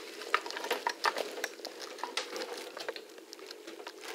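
Handling noise: scattered light clicks and taps, several a second, over a faint steady hum. The clicks fade toward the end.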